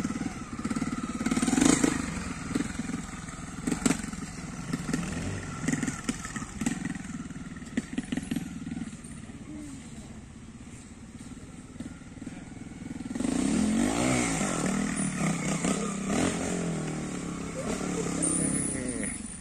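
Trial motorcycle's single-cylinder engine working a rocky climb. It runs at low revs with blips and a few sharp knocks in the first seconds, goes quieter midway, then revs up and down harder from about two-thirds of the way through.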